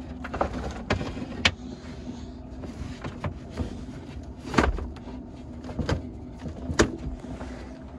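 Electrical cable being pulled through a boat's cabinetry and hose locker: rubbing and rustling with several sharp knocks and clicks, over a steady low hum.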